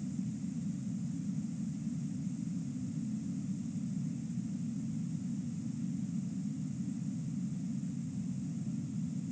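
Steady low roar of whitewater rushing over a waterfall, with a faint hiss on top.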